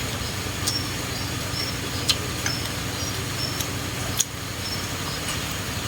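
Eating at a table: a few sharp utensil clicks against dishes while chewing fresh greens, over a steady background hum.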